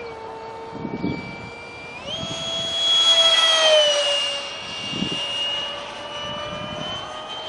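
The 70 mm electric ducted fan of a foam RC jet whining in flight. The pitch steps down at first, then rises sharply about two seconds in; the whine is loudest soon after and eases down slightly around four seconds.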